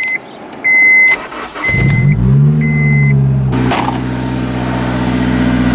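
Car's warning chime beeping four times, then the car's engine cranks and starts about two seconds in. It flares up in speed as it catches, then drops to a steady idle about three and a half seconds in.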